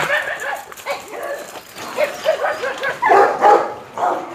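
Dogs barking and yelping, a string of short calls with the loudest about three seconds in.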